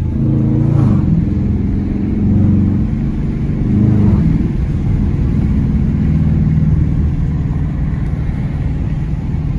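2020 Dodge Challenger R/T's 5.7-litre HEMI V8 with the mid mufflers deleted, driving at light throttle: a steady deep exhaust drone, swelling briefly about a second in and again around four seconds.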